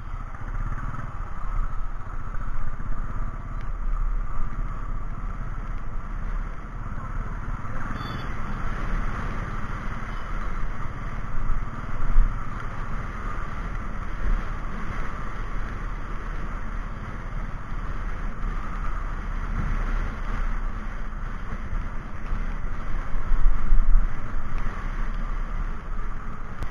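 Steady wind and engine noise on an action camera's microphone while riding a motorcycle through traffic, with a deep wind rumble and a louder swell about twelve seconds in and again near the end.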